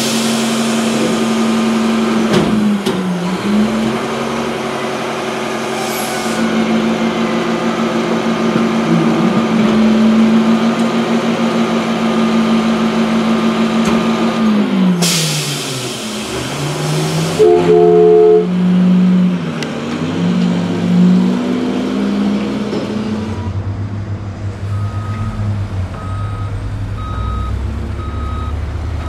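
Garbage truck sound effects: a truck engine running, its pitch dipping and coming back up twice, a burst of air-brake hiss about halfway through, then a low rumble with reversing beeps about once a second near the end.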